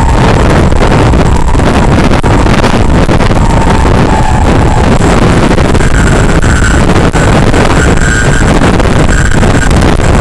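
Heavy wind buffeting on the model plane's onboard microphone, with the EasyStar II's electric pusher motor whining underneath; the whine changes pitch, stepping up about halfway through as the throttle changes.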